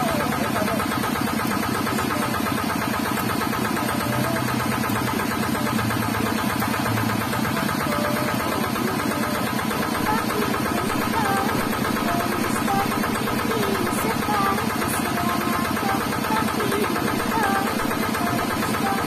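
Kuliglig, a Filipino hand-tractor cart, its engine running steadily with an even, rapid chug that does not let up.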